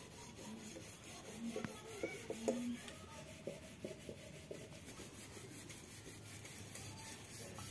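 Faint scraping and light clinks of a metal spoon against steel dishes.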